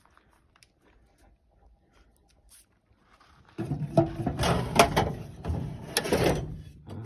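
Near silence, then from about halfway through a loud clatter and handling noise with sharp knocks: a tool box drawer being opened and its contents rummaged through.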